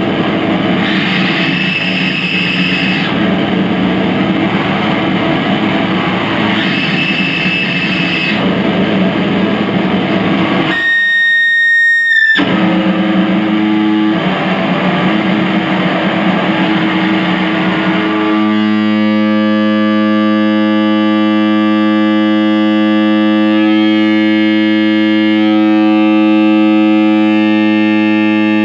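Harsh noise: loud, dense distorted noise from electronics played through an amplifier. About eleven seconds in, a piercing high feedback squeal takes over for a second or so. From about eighteen seconds the noise settles into a steady distorted drone with many overtones.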